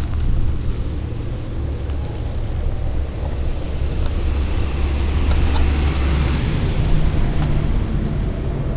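Invacare TDX SP power wheelchair rolling along, its drive motors humming over a steady low rumble of the wheels on pavement. A hiss swells between about four and seven seconds in, as from a car passing on the park road.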